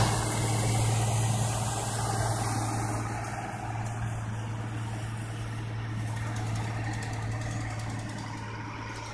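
Ursus 1214 tractor's six-cylinder diesel engine running steadily under load while pulling a power harrow and seed drill, a steady low hum that fades gradually as the tractor moves away.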